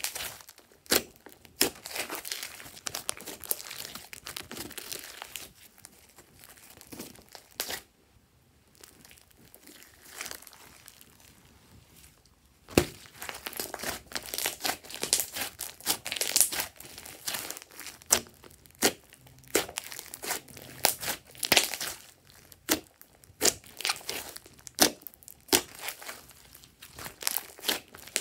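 Hands squeezing and kneading a large mass of glossy slime: wet, sticky crackling with many sharp pops and clicks as trapped air pockets burst. It goes quieter for a few seconds in the middle, then picks up again with a sharp pop.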